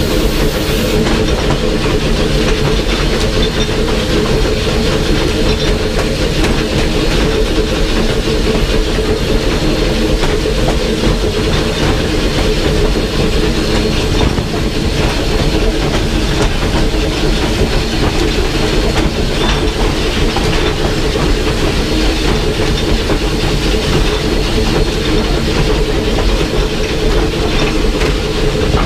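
Steam locomotive running, heard from inside its cab: steady clatter and rumble of the wheels and running gear on the rails, with a hiss of steam.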